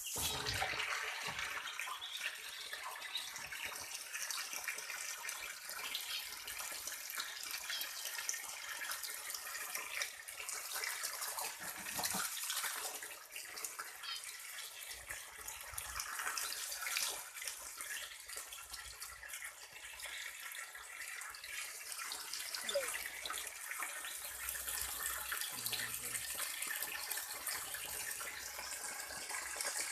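Muscovy ducklings dabbling and pecking at wet food, a steady splashy, watery noise with many small quick clicks.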